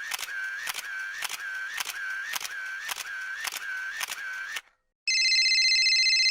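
A sound effect of sharp clicks repeating about twice a second, each with a short dipping tone, like a camera shutter fired again and again; it stops about four and a half seconds in. About half a second later a steady electronic ringing tone starts.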